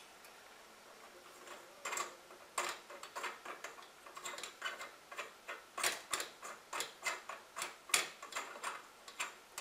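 Small metal clicks and taps, irregular and a few a second, as the nut is threaded back onto the top of a Coleman NorthStar gasoline lantern's ventilator cap. They start about two seconds in.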